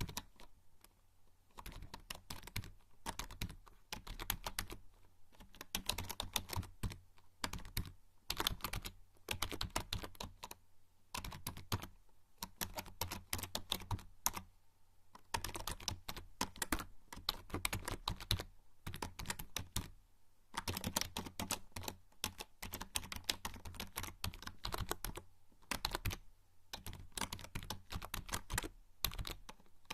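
Typing on a membrane computer keyboard: quick runs of soft key clicks in bursts, with short pauses between them.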